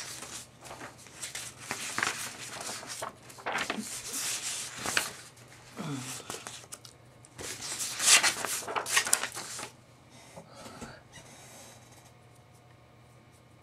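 Sheets of paper being handled and shuffled, rustling and crinkling in irregular bursts that stop about ten seconds in.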